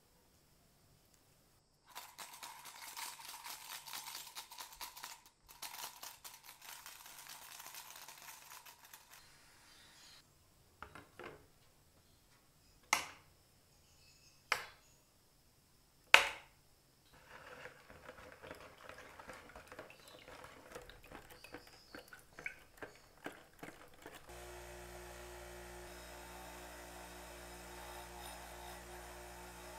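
Liquid degreaser poured into a plastic cup over a small steel spring, then three sharp clicks as a small circlip is handled with tweezers in a jar of rust-removing acid. Near the end a small bench grinder's motor starts humming steadily, its wire wheel spinning.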